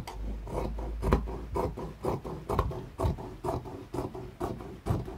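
Dressmaking shears cutting through shiny lining fabric, trimming off the hem allowance: a steady run of crisp snips, about two a second, as the blades close again and again along the hem.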